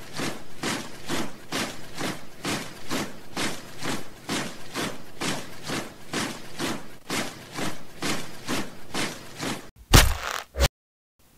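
Marching footsteps of a body of soldiers, an even tramp at about three steps a second. A single heavy thud comes near the end.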